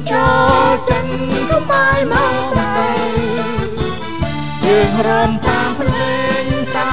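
Singers performing a song together over backing music: a sung melody over a steady drum beat.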